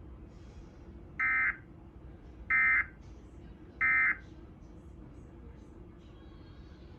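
Emergency Alert System end-of-message data tones: three short, identical bursts of digital warbling, spaced a little over a second apart, marking the end of the flash flood warning broadcast.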